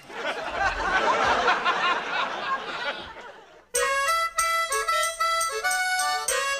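Studio audience laughing after a punchline, dying away over the first three and a half seconds; then the sitcom's opening theme music cuts in abruptly, a melody of short held notes in a steady rhythm.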